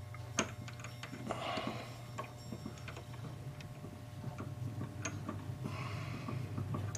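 Light, irregular small metal clicks and brief soft scraping as a hand-made centering point is fitted into the spindle of a rebushing machine over a brass clock plate, with a steady low hum underneath.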